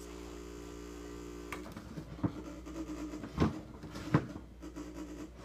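Mini fridge compressor humming steadily, then cutting off about a second and a half in, followed by a few sharp clicks and knocks of handling.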